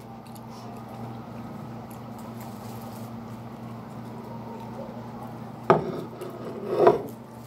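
A steady low hum, with two sharp knocks near the end as a plate is handled; the second knock is the louder.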